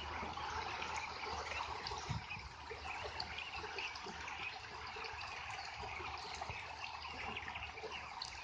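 A mixed flock of white and ordinary domestic ducks dabbling and splashing in shallow muddy water: a steady, dense mix of many small water sounds, with no single loud event.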